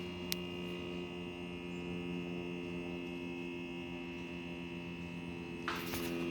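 Steady electrical hum made of several even tones, with a single sharp click about a third of a second in and a brief rustling burst near the end.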